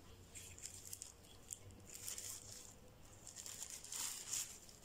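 Crinkling and rustling of a white packaging wrapper being handled and unwrapped, in irregular bursts, loudest about two seconds in and again near the end.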